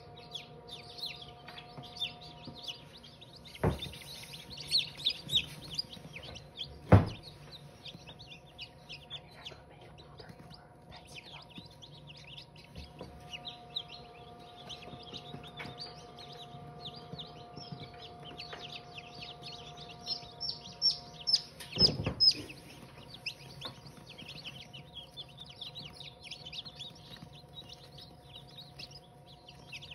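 Backyard chickens clucking and chirping over a steady faint hum, with a few sharp knocks, the loudest about seven seconds in.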